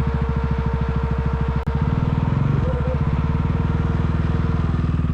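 KTM Duke motorcycle engine running steadily at low revs, its firing pulses coming evenly many times a second, with a brief sharp dropout about one and a half seconds in.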